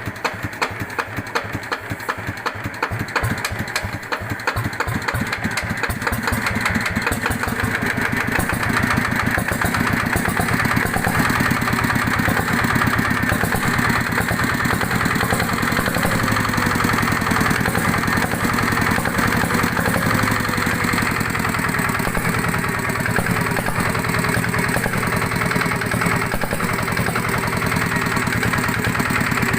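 Yanmar TF105 horizontal single-cylinder diesel running at a very slow idle, each firing pulse heard separately. About five seconds in it picks up speed and then runs steadily faster and louder. It has the odd tok-tok knock that the owner is unsure is normal.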